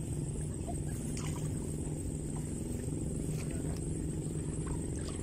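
A steady low rumble with a hum in it, unchanging throughout, with a few faint light clicks over it.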